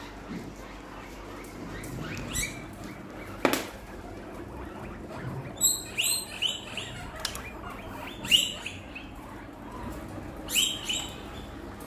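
Guinea pigs squeaking: clusters of short, high, rising squeaks, about four bouts. A single sharp knock comes a few seconds in.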